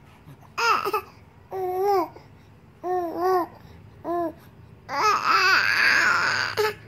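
Three-month-old baby cooing and babbling: four short coos, each rising and falling in pitch, then a longer, louder call about five seconds in.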